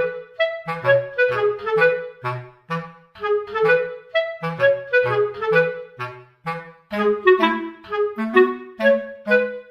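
Instrumental background music: a melody of short notes over lower bass notes.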